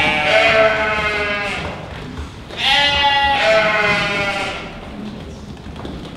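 A flock of sheep bleating: two long bouts of several overlapping bleats, the second beginning just under three seconds in.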